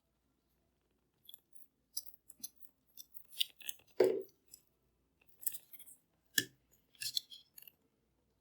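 Scattered small clicks and crackles of the old, degraded headband of a pair of Bose QC-15 headphones being worked free by hand. There is a louder knock about four seconds in and a sharp click a little after six seconds.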